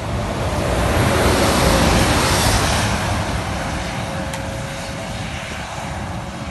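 A vehicle passing on a wet highway: tyre hiss and road noise swell over about two seconds, then fade away. A faint steady hum sets in near the end.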